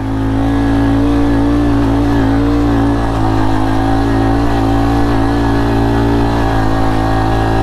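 Honda CRF110 pit bike's small single-cylinder four-stroke engine running under load at a nearly steady pitch as the bike pulls through thick sand.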